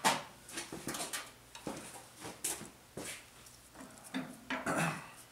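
Irregular metallic clinks and knocks of hand tools and loose bolts against the cast-iron hydraulic top cover of a Ford 8N tractor being unbolted, the sharpest right at the start.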